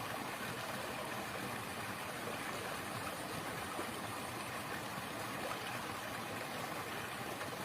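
Steady, even rush of flowing water, with no distinct events.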